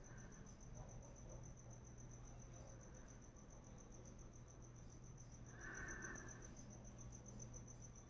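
Faint cricket chirping: a steady, high trill pulsing at an even, fast rate. A brief faint sound comes about six seconds in.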